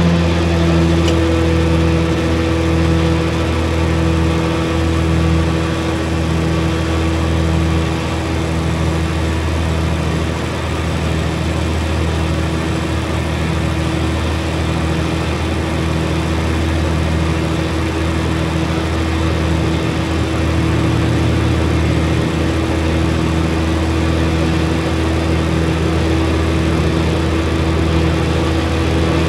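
Military 6x6 wrecker's diesel engine idling steadily, with a faint regular pulse in its note about once a second.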